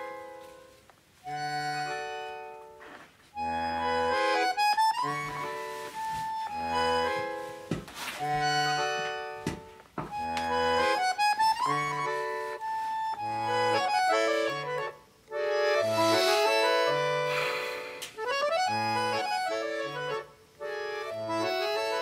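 Instrumental background music: a melody over an accompaniment of short bass notes alternating with chords, in a steady rhythm.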